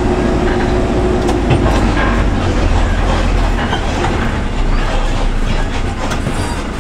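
Inside a bus cab: the engine runs with a steady low rumble while the bus body rattles and knocks over a broken, potholed road.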